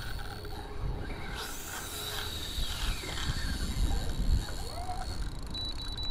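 Spinning reel's drag giving line to a large hooked golden trevally on its run, a thin steady high whine, over low, uneven rumble on the microphone.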